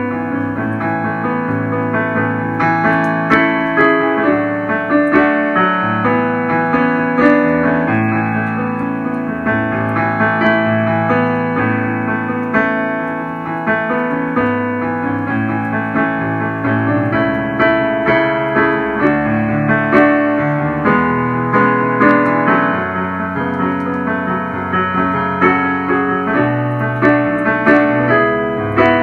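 A hymn played on the piano.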